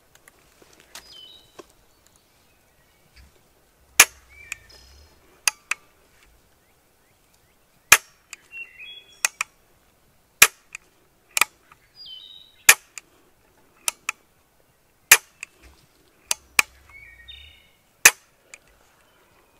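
A cheap shotgun misfiring again and again: over a dozen sharp metallic clicks, some in quick pairs, spaced one to two seconds apart, as the hammer falls on a shell that will not go off. Short soft bird calls come in between the clicks.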